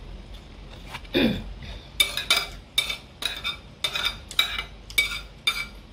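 Metal spoon and fork clinking and scraping on a ceramic plate, about two sharp clinks a second, starting about two seconds in. Before that, a short falling hum about a second in.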